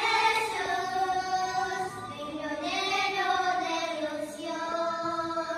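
Group of children singing a First Holy Communion hymn together: two sung phrases of long, held notes, with a short break about two seconds in.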